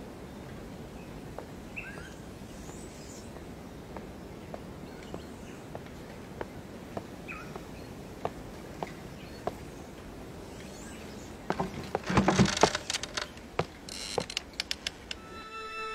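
Outdoor nature ambience: a steady hiss with a few faint bird chirps, and light footsteps about every half second for the first nine seconds or so. About twelve seconds in comes a louder burst of noise lasting over a second, then a quick run of sharp clicks, and music starts right at the end.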